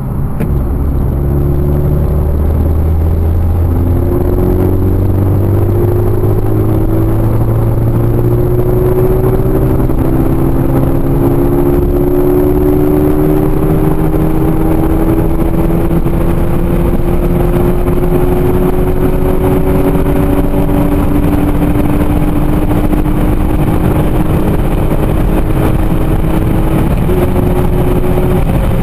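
Peugeot RCZ R's turbocharged 1.6-litre THP four-cylinder under full-throttle acceleration in a single gear, heard inside the cabin, its note rising slowly and evenly as the revs climb from about 2,000 to about 5,500 rpm.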